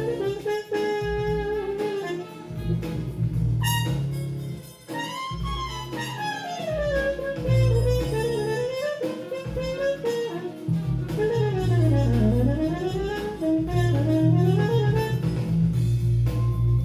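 Jazz-fusion band playing: a lead melody sweeps smoothly up and down in pitch over a heavy bass line and drums.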